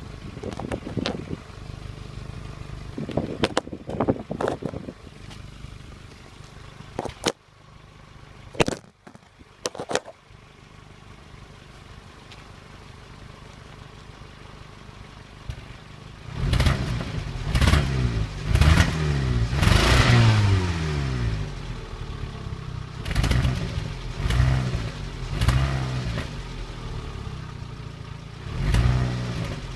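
Renault Clio 1.2 16v four-cylinder petrol engine idling, with a few sharp clicks in the first ten seconds. From about halfway through it is blipped in a string of short revs, each rising and falling. The owner calls the sound on the revs a misfire.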